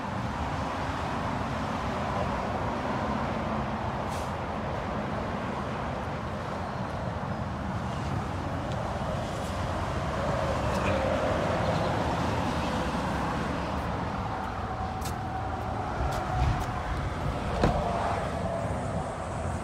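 Steady outdoor hum of road traffic, with a sharp click near the end as the car's door is unlatched and opened.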